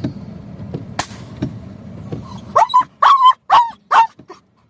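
A dog barking: a quick run of about five short barks starting about halfway through, over a low steady rumble that stops as the barking begins.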